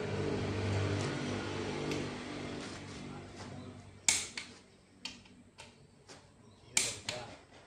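A vehicle engine running steadily and fading away over the first three seconds. About four seconds in and again near the end come two sharp clinks of handled parts, with lighter taps between.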